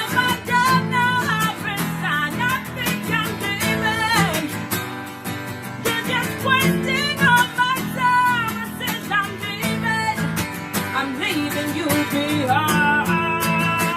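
Guitar strumming with a singing voice over it, carrying a wavering melody without clear words.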